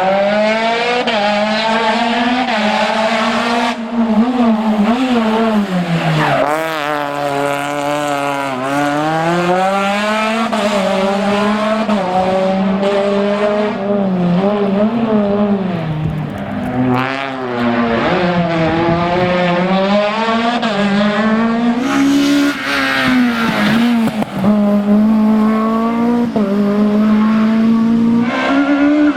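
Renault Mégane Maxi rally kit car's two-litre four-cylinder engine at high revs, its pitch climbing through the gears and dropping on lifts and downshifts several times over.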